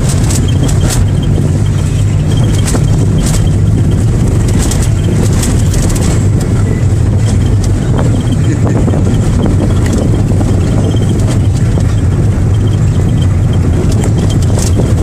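Steady, loud low rumble of a running engine, with scattered clicks and knocks over it.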